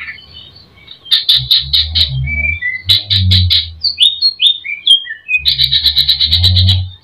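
Greater green leafbird (cucak ijo) singing a song full of phrases mimicked from other birds: two bursts of rapid chattering notes, then a run of varied whistled slurs, then a fast trill near the end.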